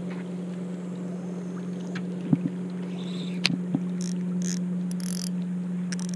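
Steady low drone of a motorboat engine running on the river. A few sharp clicks come in the middle, and brief rustling near the end as a spinning reel's line is handled.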